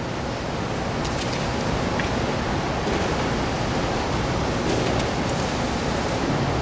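Steady, fairly loud hiss of room and sound-system noise, with a few faint clicks about a second in and again near five seconds.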